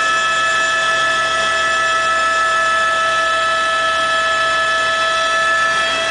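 Helicopter in flight, heard from inside the cabin: the engine and rotors make a steady, loud whine of several high tones over a constant rushing noise.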